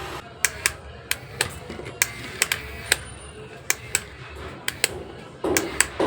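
A series of sharp clicks at uneven intervals, about two a second, over a low steady hum.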